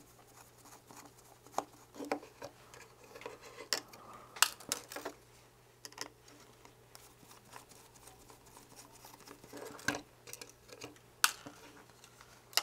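Small screwdriver tapping, prying and scraping against a circuit board and plastic camera housing: sparse small clicks and scrapes, the sharpest about four and eleven seconds in.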